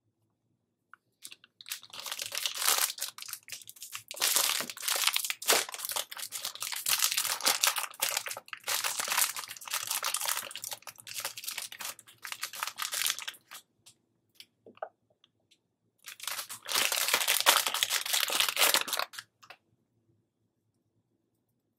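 Candy surprise egg wrappers being handled and torn open, crinkling and crackling in two long stretches with a few brief clicks between them.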